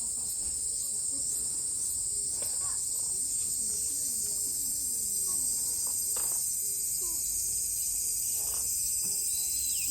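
A steady, high-pitched chorus of summer insects drones throughout, with scattered short bird calls and a dipping whistled bird call near the end.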